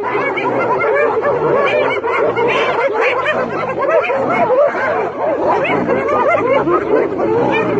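A pack of spotted hyenas calling all at once while mobbing a lion. It is a dense, continuous din of many overlapping short rising-and-falling giggles and yelps.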